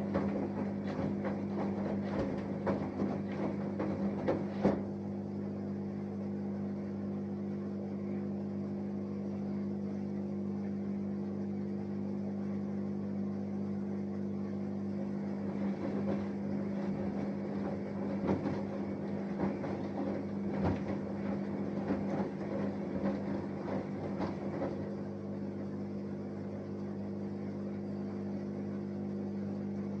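Samsung Eco Bubble washing machine running its wash cycle: a steady hum with irregular sloshing and clattering from the drum. The sloshing is busier in the first five seconds and again around the middle.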